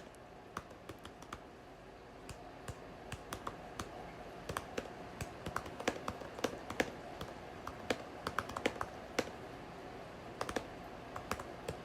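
Typing on a computer keyboard: a long, irregular run of key clicks as a sentence is typed out.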